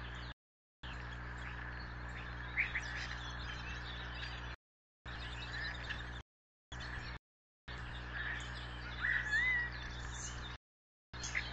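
Steady hum and hiss from an outdoor nest-cam microphone, with a few short bird chirps and a brief rising call about nine seconds in. The sound drops out to silence several times where the recording is cut.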